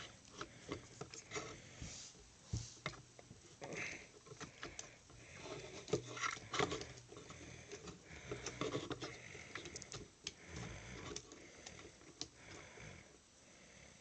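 Hard plastic parts of a Transformers action figure clicking, tapping and scraping irregularly as the toy and its cannon accessories are handled.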